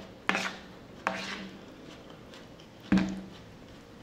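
Metal cutlery clinking against a plate: three sharp clinks, each with a short ring, the loudest about three seconds in.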